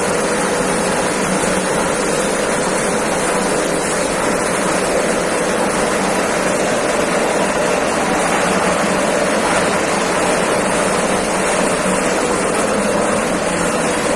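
Steady, loud machinery noise of a running industrial breading and frying line, with mesh belt conveyors and fryer equipment in operation, a constant hum under a broad even noise.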